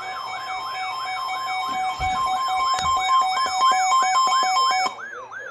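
Emergency Alert System attention signal: a steady two-note tone that sounds for about five seconds and cuts off abruptly near the end. It is the signal that a new alert, here a tornado warning, is about to be read. Under it, a siren-like alarm sweeps down in pitch about four times a second and carries on after the tone stops.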